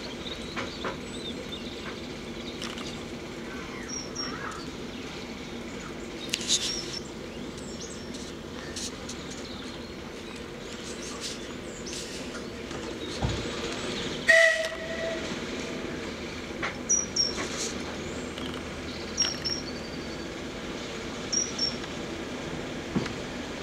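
Train moving slowly through a station behind a Class 09 diesel shunter: a steady diesel engine drone with scattered clicks and knocks from the wheels and carriages. About fourteen seconds in there is a louder knock, then a brief high tone lasting about half a second.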